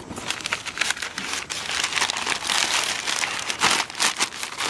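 Brown kraft packing paper crinkling and rustling as it is crumpled and pulled out of a cardboard shipping box: a continuous run of dense crackles.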